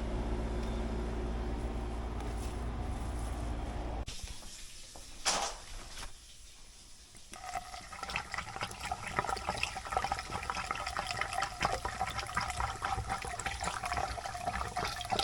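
Water being poured into a PVC condensate drain line, splashing and gurgling with a hollow ringing tone from the pipe; this is a flow test of the line, which the crew find is broken under the house. Before it, a steady low machine hum cuts off suddenly about four seconds in.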